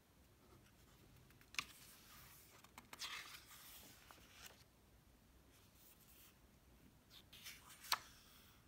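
Faint paper sounds of a picture book's pages being turned by hand: a sharp snap about a second and a half in, a rustling swish around three seconds, and another sharp snap near the end.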